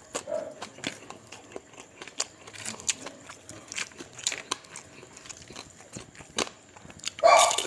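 Eating sounds: short crunches, clicks and chewing. A dog barks once loudly about seven seconds in.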